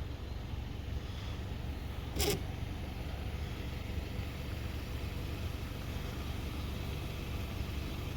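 Steady low rumble of a vehicle, as heard inside the car, with one sharp tap or knock about two seconds in.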